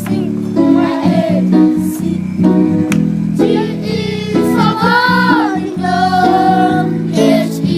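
Music: a song with singing voices over instrumental accompaniment.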